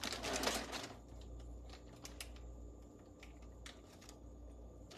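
Quiet food-prep handling in a kitchen: a brief rustle in the first second, then a few light, scattered clicks and taps as cheese slices are handled, over a faint steady hum.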